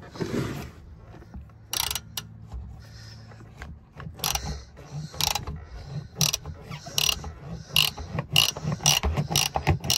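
Half-inch ratchet clicking as it turns the oil filter housing cap through a cap-wrench socket. The clicks come in short runs about once a second, getting closer together near the end.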